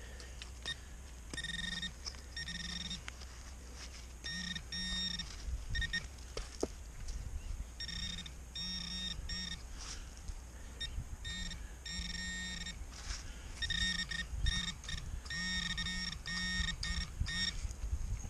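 Handheld metal-detecting pinpointer giving runs of short beeps with a buzz under them, starting and stopping in groups as it is worked through loosened soil over a buried target. Soft knocks of hands working the dirt come in between.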